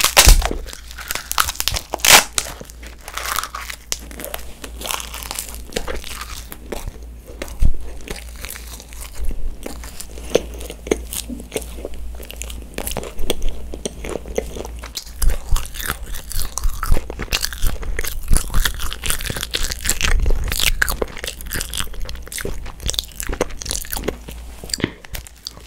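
Close-miked biting and chewing of a sheet of edible coloured paper: a loud crisp bite at the start and another about two seconds in, then steady crunchy chewing.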